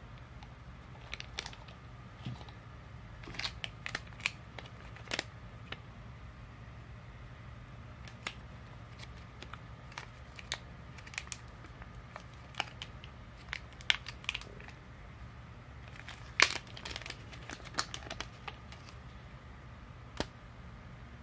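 Clear plastic wrapping crinkling and rustling while a phone charger and its coiled USB cable are unwrapped and handled, with scattered small clicks and taps, the sharpest about 16 seconds in. A low steady hum runs underneath.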